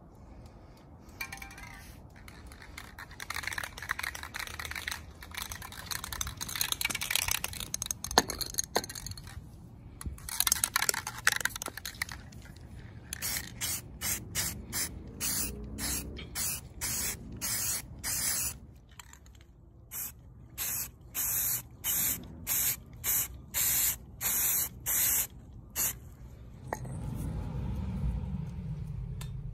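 Aerosol spray can spraying black paint, first in longer sprays and then in many short, evenly spaced bursts.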